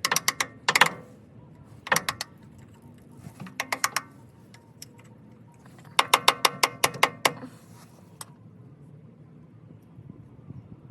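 Hammer taps on metal, driving out the leaking transmission tail-housing seal of a Ford Ranger by striking its lip at an angle. The taps come in short quick runs, the longest a fast string of about ten a little past the middle.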